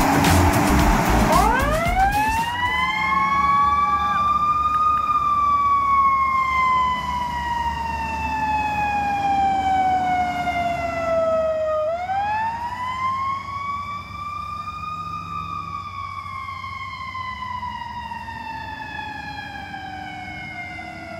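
Ambulance siren on wail: it winds up quickly, then falls slowly in pitch, and goes round two long cycles. It grows steadily fainter as the ambulance drives away.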